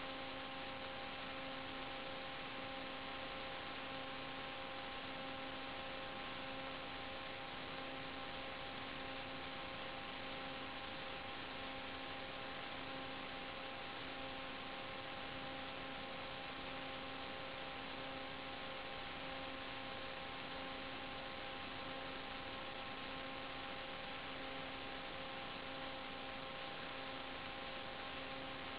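A steady electrical hum with a row of overtones over an even hiss. It does not change at all, which fits noise on the audio channel of an analog FPV video link rather than the motors heard through a microphone.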